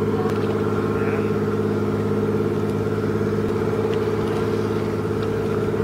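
A vessel's engine running steadily, a low even drone that does not change.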